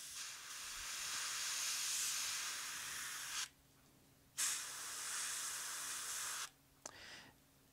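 Airbrush spraying paint in bursts: a long spray of about three and a half seconds, a second spray of about two seconds after a short pause, then a brief puff near the end.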